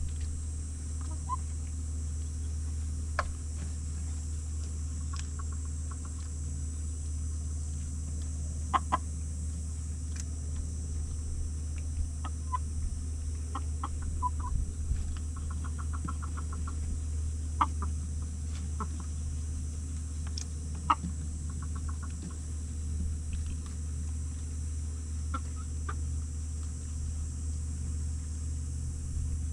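Chickens clucking in short, scattered calls while they feed, with a few sharp clicks in between.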